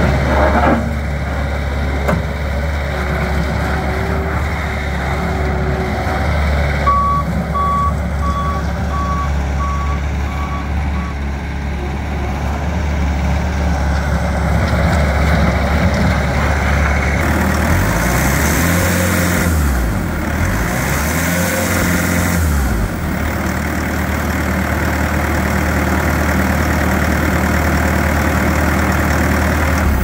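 Bobcat S570 skid steer's diesel engine running steadily, with its backup alarm beeping about seven times a third of the way in as the loader reverses. About two-thirds of the way in the engine revs up and back down twice, then settles to a steady run again.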